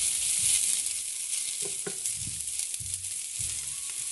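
Chunks of red onion sizzling in a hot cast iron skillet, a steady hiss, with a few soft knocks as they are stirred with a spatula.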